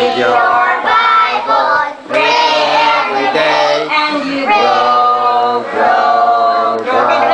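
A group of children singing an action song together in unison, in sung lines with held notes and brief breaks between them.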